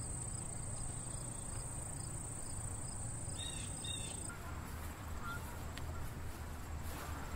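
Summer outdoor ambience of insects: a steady high-pitched insect drone with faint rapid chirps, over a low steady rumble of background noise. The insect drone drops away about four seconds in.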